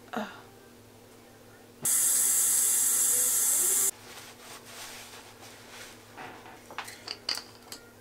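A tap runs into a sink for about two seconds, starting and stopping abruptly. A towel then rubs over the face with soft rustling and a few short sharp ticks.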